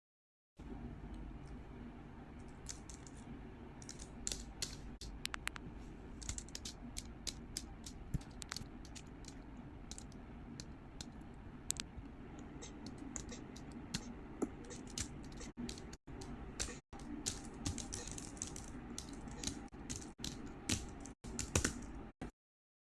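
Irregular light clicks and taps over a low steady background hum, broken off abruptly by several brief gaps near the end.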